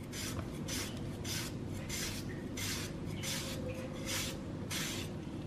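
A two-bladed peeler shaving thin slices off a peeled daikon radish, with a rasping swish on each stroke. The strokes come at an even rhythm, about three every two seconds.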